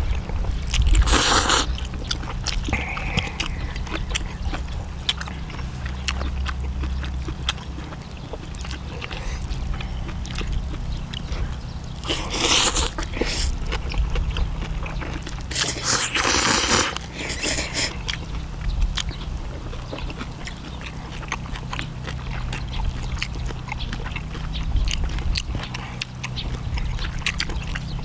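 People eating at close range: chewing, with frequent small clicks of utensils and dishes, and a few louder noisy bursts about a second in and again around 12 and 16 to 17 seconds in. A steady low hum lies underneath.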